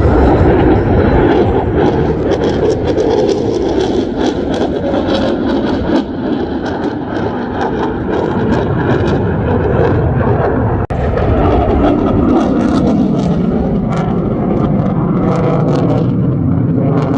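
Loud jet noise from an F-22 Raptor's two Pratt & Whitney F119 afterburning turbofans during a display pass, with a crackling edge throughout. There is a very brief dropout about eleven seconds in.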